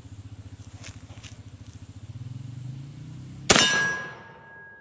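A single shot from a Pietta 1858 Remington-pattern .44 cap-and-ball black powder revolver with a 12-inch stainless barrel, a sharp crack about three and a half seconds in that dies away over a second with a lingering ring. A steady low pulsing hum runs underneath until the shot.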